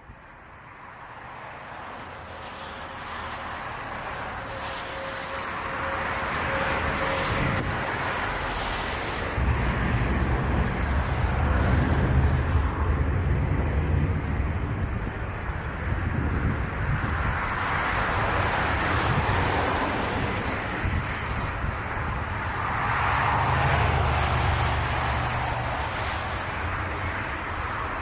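Aircraft engine noise on a landing approach, building from faint to loud over the first ten seconds with a steady whine early on, then staying loud with a deep rumble that swells and fades.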